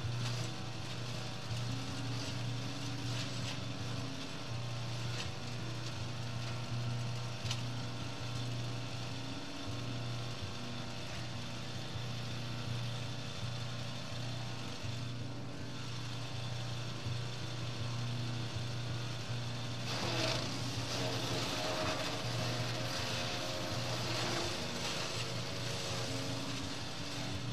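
Petrol garden chipper-shredder engine running steadily. From about two-thirds of the way in, branches are being fed in and chewed up, a louder, rougher grinding over the engine.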